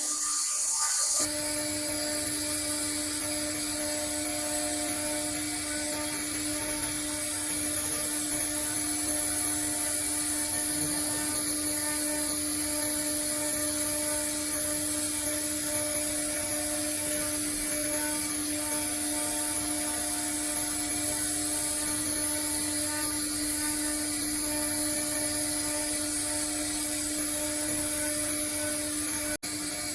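Spindle of a Blue Elephant ELE1325 ATC CNC router running steadily: a constant whine over a high hiss. It comes in about a second in and holds level, with a brief drop just before the end.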